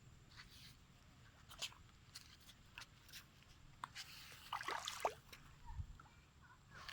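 Young monkeys playing in shallow water: scattered faint taps and small water sounds. About four to five seconds in there is a busier cluster of short squeaky sounds and splashes.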